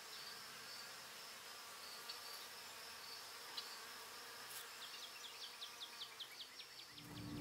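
Faint insect sound: a steady high-pitched buzz, joined about halfway through by a run of quick chirps, about five a second.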